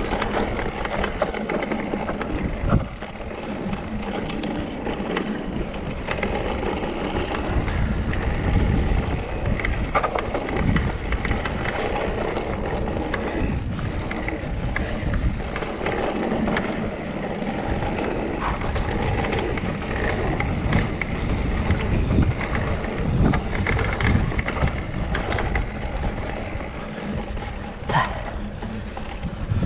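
Mountain bike riding over a dirt singletrack: tyres rolling on dirt and the bike rattling over bumps, with a low rumble of wind on the microphone. There are sharp knocks about three seconds in and again near the end.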